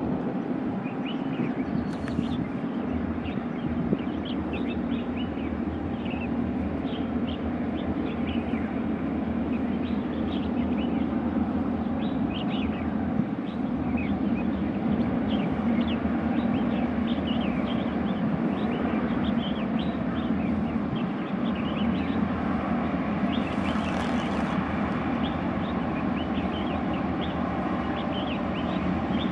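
Boeing Jetfoil's gas turbines and water jets making a steady drone that grows slightly louder as it closes in, with small birds chirping throughout.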